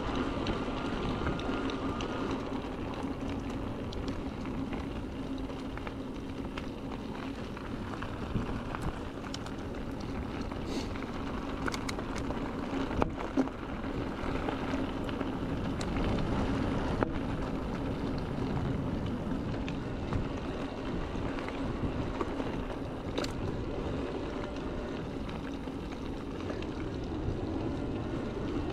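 Electric mountain bike rolling over a gravel path: steady tyre noise and rattle with a low hum underneath, and a couple of sharp knocks from bumps about halfway through.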